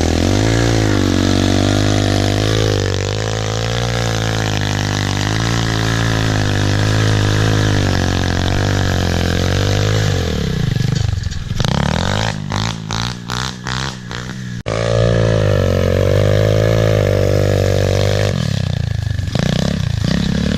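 A small engine running at a steady speed with a slightly wavering pitch for about ten seconds. It turns choppy and sputtering for a few seconds, then runs steady again.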